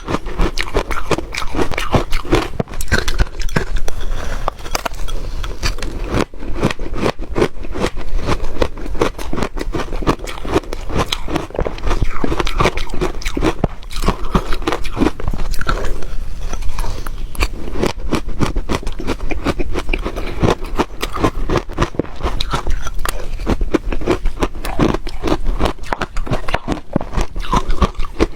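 Ice being bitten and chewed close to the microphone: continuous crunching made of many sharp cracks, with no pause.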